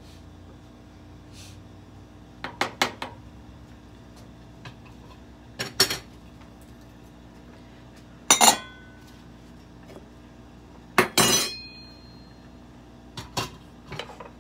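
Kitchenware clinking and clattering: pots, utensils and dishes knocked and set down, in about five short bursts, some leaving a brief metallic ring.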